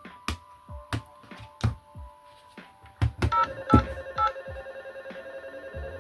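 A series of sharp clicks as power is connected. About three seconds in, electronic beeps and a steady synthesized tone start from the model KITT's electronic sound board speaker as it powers up.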